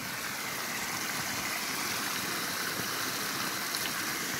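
Small mountain stream trickling over stones and spilling down a low rocky step: a steady rushing of running water.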